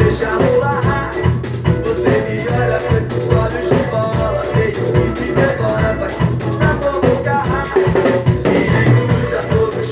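Drum kit played along to a recorded axé song: a steady drum beat over the full band track, with pitched melody lines above it.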